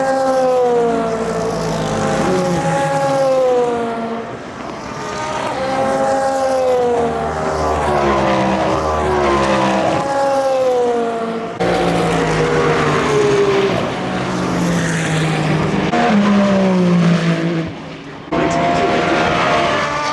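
Endurance race car engines on track, revving up and falling away as the cars pass and shift, several cars in turn. The sound cuts abruptly twice, about 11 and 18 seconds in, as one clip gives way to the next.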